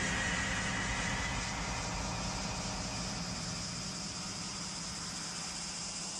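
A steady, noisy rumble that slowly fades, a sustained sound effect on an anime soundtrack.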